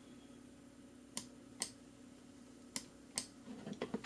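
Sharp clicks from operating a computer: four clicks in two pairs, the clicks within each pair about half a second apart, over a faint steady hum.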